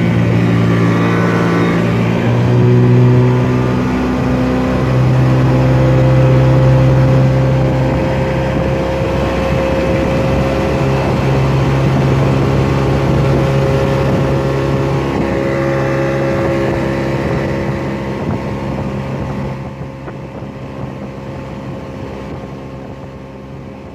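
Mercury 110 9.8 hp two-stroke outboard running and pushing a small aluminium boat, with some wind on the microphone. The engine speed shifts in the first few seconds, then holds steady, and the sound fades out near the end.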